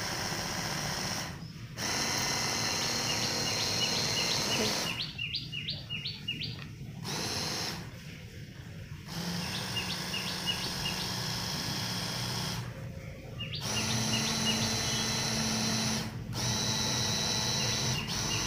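Electric hand blender with a chopper bowl running in pulses, grinding soaked urad dal into a thick batter. The motor stops briefly about five times and restarts.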